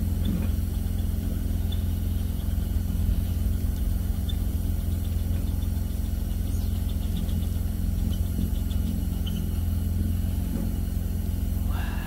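A steady low engine hum, like a vehicle idling, running evenly throughout.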